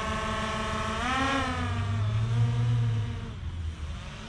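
DJI Mavic Air 2 quadcopter's propellers whining in flight: a steady, many-toned buzz that rises in pitch about a second in, settles back, and grows fainter near the end.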